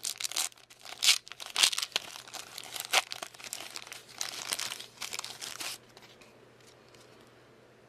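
Plastic foil wrapper of a trading card pack crinkling and tearing as it is opened by hand, with rapid crackles that stop about two seconds before the end.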